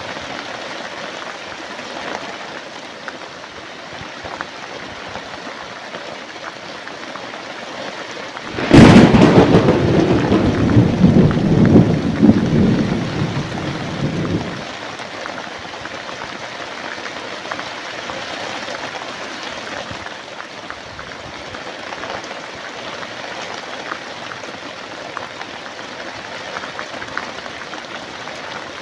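Steady rain falling, with a single thunderclap about a third of the way through: a sharp crack followed by a low rumble that rolls for about five seconds and then dies away.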